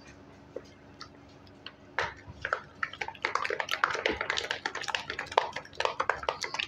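Ghee and ice being beaten by hand against the inside of a metal bowl in fast circles: a quick run of small clicks and wet rubbing that starts about two seconds in. The beating whips the ghee until it is white and creamy.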